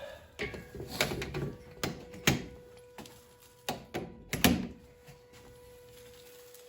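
Garage door rollers being fitted into the hinge brackets along the door panels' edge: a run of sharp metal knocks and clacks, about seven in the first five seconds.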